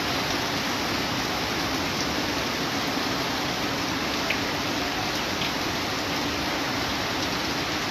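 Steady rushing of muddy floodwater pouring across a paved street, mixed with heavy rain.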